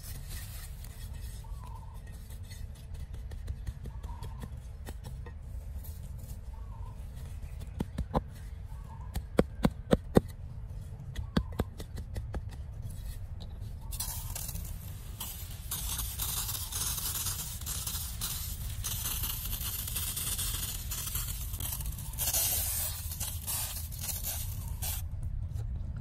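A small hand trowel and hands working dry soil around a newly planted seedling. There is a run of sharp clicks and scrapes, then a steady gritty rustle as the soil is spread and pressed down, all over a low rumble.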